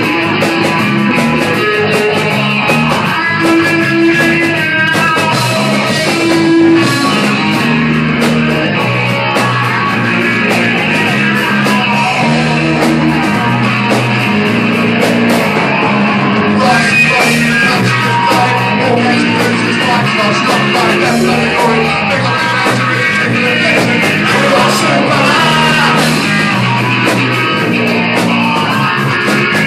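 Live rock band playing loud and steadily: electric guitars, bass and a drum kit with frequent cymbal and drum hits.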